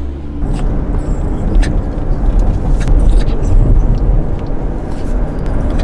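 Road noise inside a moving car's cabin: a loud, steady low rumble that rises about half a second in, with a few light clicks over it.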